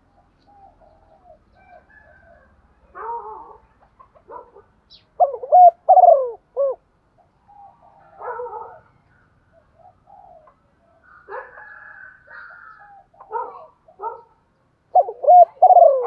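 Female spotted dove cooing, the call keepers play to stir male doves into calling. Short groups of soft coos, loudest about five seconds in and again near the end, with fainter calls between.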